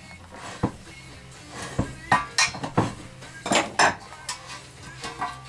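Hand tools clanking and clinking against a steel portable air tank and its fittings, a series of irregularly spaced sharp metallic knocks.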